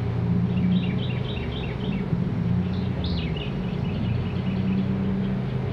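Honeybees buzzing around an open hive, a steady low hum. Over it a songbird sings twice, each time a falling note followed by a quick run of short chirps.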